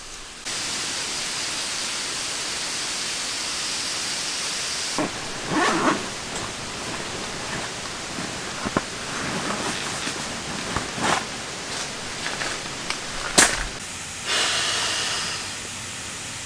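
A steady hiss of background noise that changes character abruptly a few times. Over it come rustling and several sharp knocks as bags and camping gear are handled, the sharpest knock near the end.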